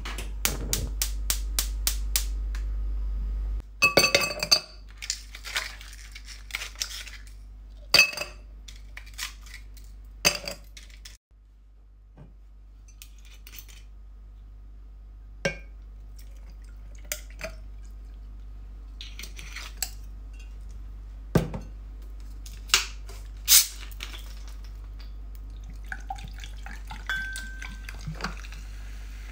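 A gas stove's burner igniter clicking rapidly, about ten times. Then ice cubes clinking into a tall glass, scattered knocks of glass and bottle on a countertop, and near the end soda being poured gently over the ice.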